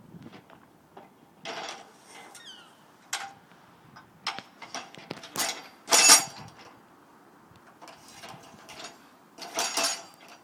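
A trapped seagull calling in a series of harsh squawks, the loudest about six seconds in, mixed with a few sharp knocks.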